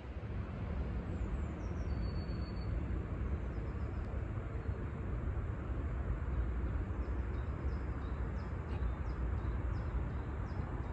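Steady low outdoor rumble with small birds chirping faintly over it: a short high whistle about two seconds in, then many quick, high, falling chirps through the second half.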